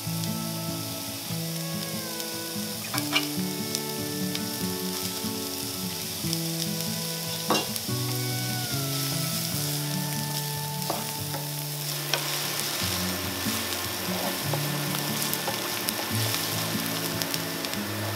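Chopped onion sizzling in hot oil in a nonstick frying pan as it is stirred with a wooden spatula, with a couple of sharp knocks of the spatula against the pan.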